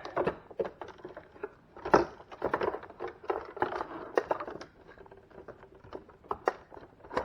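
Hard plastic clicking, knocking and scraping as parts of a refrigerator's ice maker are handled and pushed back into place, with a sharp knock about two seconds in.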